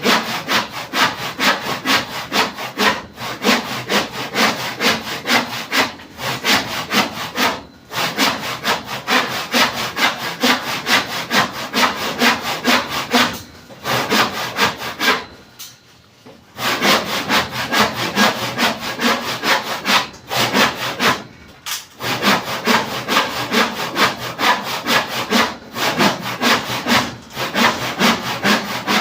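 Hand saw cutting wood in quick back-and-forth strokes, about three a second, with short pauses between runs.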